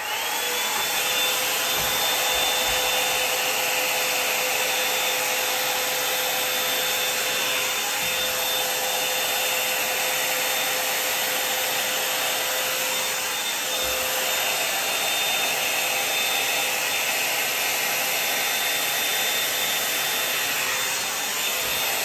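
Hot air brush (a blow dryer and round brush in one) running: a steady rush of blown air with a high motor whine, as it is worked through wet hair.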